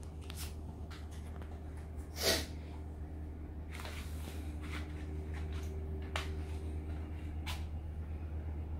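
Quiet room with a steady low hum and a few faint clicks; about two seconds in, one short breathy burst like a snort.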